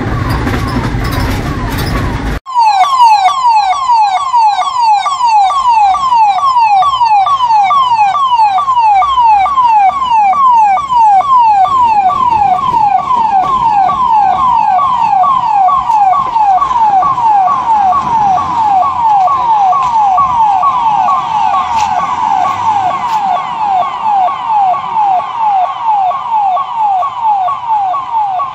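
Ambulance siren sounding in quick repeating falling sweeps, roughly three a second, as the ambulance drives away. It starts abruptly about two seconds in, after a short stretch of vehicle noise inside the ambulance, and grows slightly fainter near the end.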